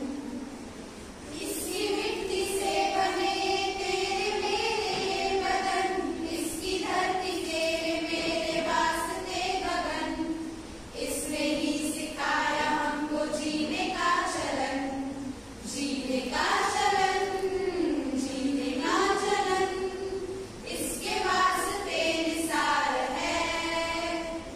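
A group of women singing a Hindi patriotic song together in unison, phrase after phrase with short breaks for breath.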